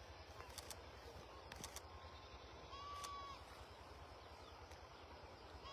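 Near silence over a low steady rumble, broken about halfway through by one short, level-pitched animal call.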